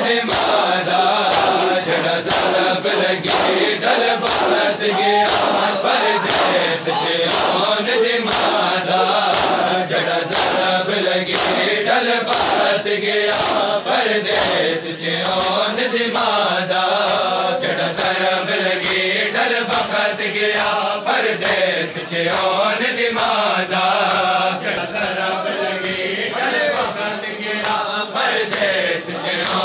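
A crowd of men chanting a noha in unison, with loud rhythmic chest-beating (matam): hand slaps on bare chests land together in a steady beat under the chant.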